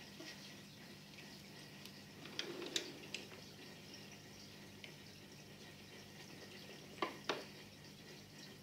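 Aquarium air stone bubbling faintly over a low steady hum, with a few short sharp clicks about two and a half to three seconds in and two more about seven seconds in.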